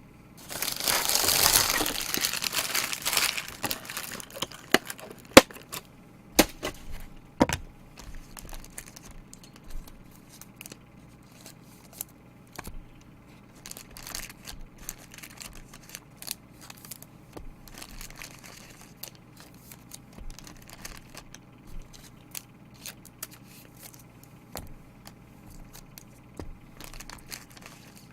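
Card packaging wrap crinkling and tearing loudly for about three seconds, then scattered light clicks and soft rustling as cards and wrappers are handled.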